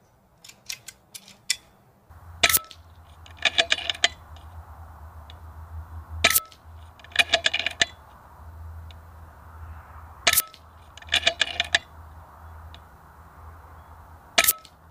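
A .22 FX Impact M3 PCP air rifle fired four times, about four seconds apart, each shot a sharp crack. About a second after each shot comes a short quick run of metallic clicks as the action is cycled for the next pellet.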